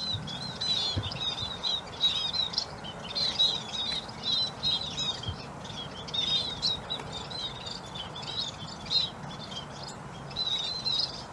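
A flock of munias giving many short, high chirps in a constant busy chatter, over steady background noise.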